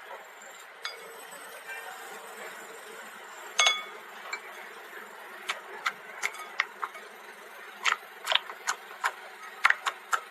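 Scattered sharp clicks and taps from slime and its small containers being handled, with a ringing clink about three and a half seconds in and quicker clicks in the second half over a faint hiss.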